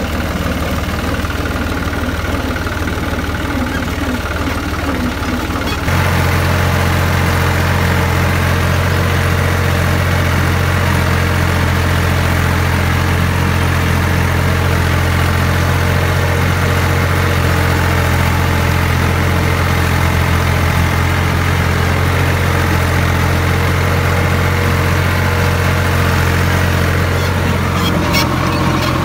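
Tractor diesel engine running steadily. About six seconds in its sound changes abruptly to a louder, deeper steady drone. A few short clicks come near the end.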